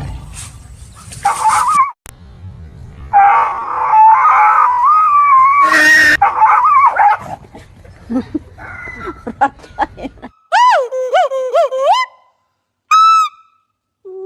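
A dog howling and whining in a long, wavering high pitch, followed by a few separate short whimpering cries that rise and fall.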